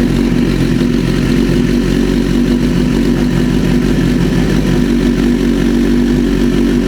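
2010 BMW S1000RR's 999 cc inline-four, fitted with an aftermarket Brock's exhaust, idling steadily just after starting.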